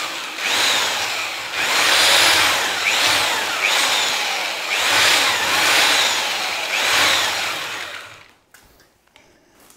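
Electric drill with a paddle mixer stirring travertine plaster mix in a bucket, its whine rising and falling about once a second; it stops about eight seconds in.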